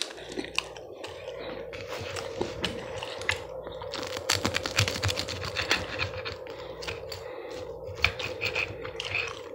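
Rotary pizza cutter rolling and scraping through the burnt crust of a pan pizza: a run of quick crackling clicks and scrapes, densest around the middle.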